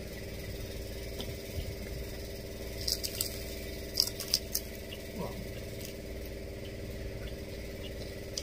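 Cutlery clinking and tapping on plates during a meal: a cluster of sharp clicks about three to four and a half seconds in, over a steady low hum.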